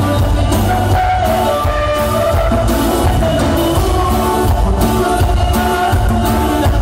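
Live band music played loud, with a steady beat and a heavy bass.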